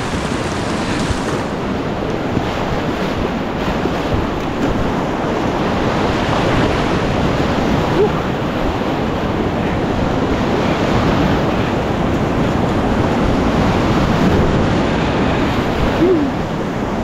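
River water rushing steadily over rapids, a loud, even rush close around the raft.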